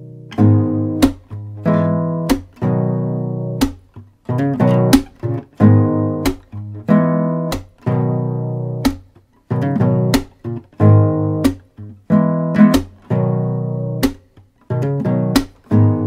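Instrumental music: an acoustic guitar strumming and plucking chords in a steady rhythm, each chord ringing and fading, with short breaks between phrases.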